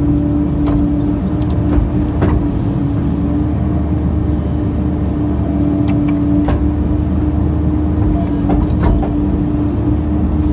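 Excavator's diesel engine and hydraulics running steadily under load, heard from inside the cab, with a constant droning tone. A few sharp knocks come as the bucket works into dirt and roots.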